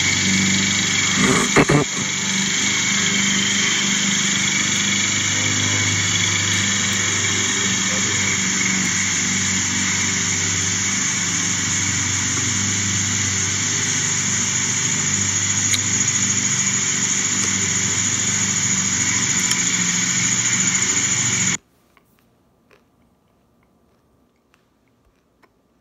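A steady mechanical drone, like a motor running, with a low hum and a hiss above it. There are a couple of knocks about a second and a half in. The drone cuts off abruptly about 21 seconds in, leaving near silence.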